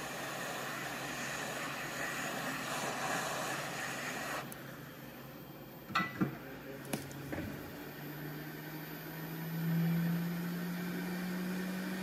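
Hot air rework station blowing a steady hiss onto the circuit board as the new micro USB connector's solder reflows, cutting off about four and a half seconds in. A few small clicks follow near six seconds, then a low hum that rises slightly in pitch.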